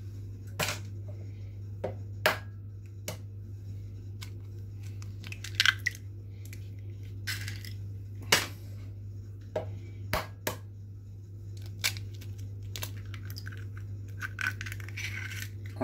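Eggs being cracked into a glass bowl: sharp taps and crunches of eggshell breaking, several times, with the shells scrunched as they are pulled apart.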